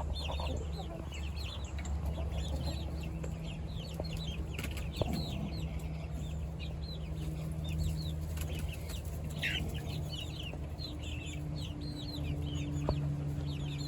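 Backyard chickens making many short, high, falling cheeping calls, over the steady hum of a lawnmower engine running in the background.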